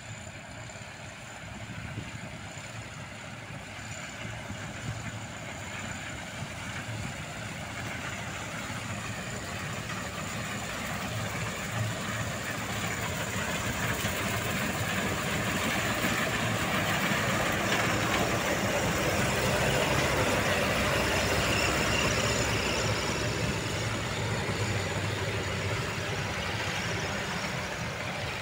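Combine harvester working, cutting and threshing barley: the steady sound of its engine and threshing machinery grows louder as it approaches, loudest about two-thirds of the way through, then eases slightly as it passes.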